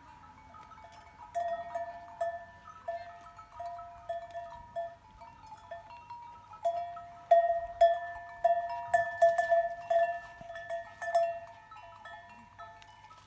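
Bells ringing in irregular, overlapping strikes at a few steady pitches, getting louder about halfway through.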